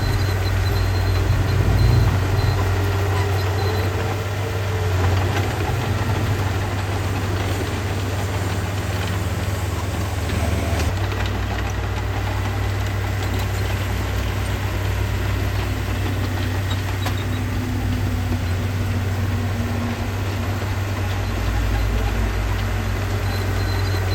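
The diesel engine of a heavy earthmoving machine running steadily at low revs, with small shifts in its note.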